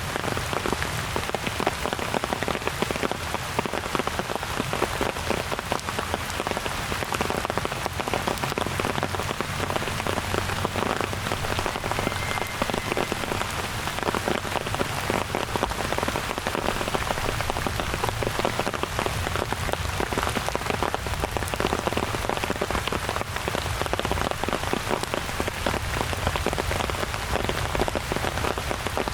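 Steady rain falling, a dense, even patter of drops on the surfaces around.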